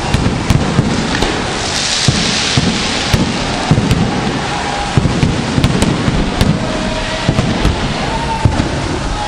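Fireworks going off: many sharp bangs scattered over a constant dense crackling noise, with a loud hiss about two seconds in.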